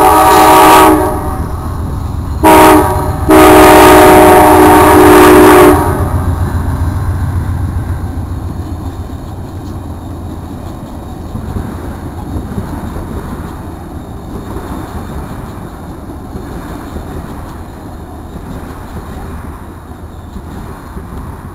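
Diesel locomotive's multi-chime air horn: a long blast ending about a second in, a short blast, then a final long blast that stops about six seconds in, the pattern of a grade-crossing signal. The train then rumbles past with wheels clicking over the rails, slowly fading.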